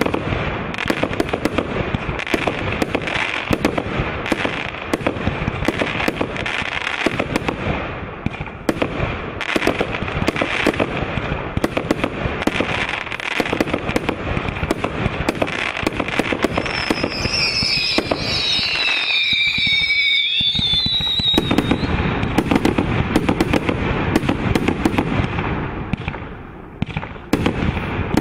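Multi-shot fireworks cake firing a rapid, continuous string of launches and bursts. About two-thirds of the way through, several high whistles glide downward in pitch over the shots.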